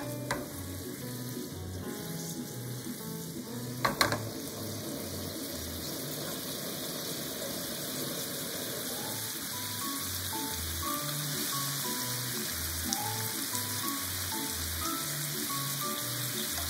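Pork-wrapped rice balls sizzling in a frying pan in freshly added soy sauce, mirin and sake, a steady hiss as the sauce simmers. Background music with a slow, stepping bass line runs underneath, and there is one sharp knock about four seconds in.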